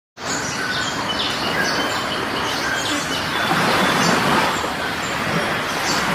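Many short, high bird chirps over a steady, even rushing noise.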